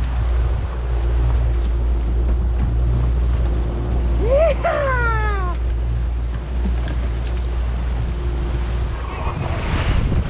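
Wind buffeting the microphone and water rushing past the hull of a small fishing boat under way, a steady low rumble. A short sliding cry, rising then falling, comes about four seconds in.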